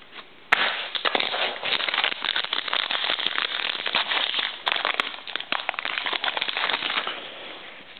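Trading card pack wrapper crinkling and crackling as it is torn open and handled, starting about half a second in and dying down near the end.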